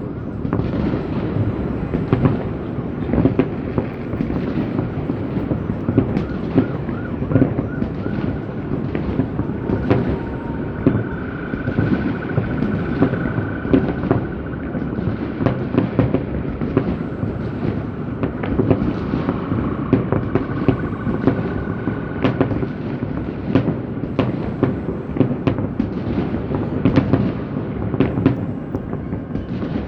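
Aerial fireworks going off in a dense, continuous barrage of booms and bangs, many overlapping each other. A faint high whistle runs through the middle.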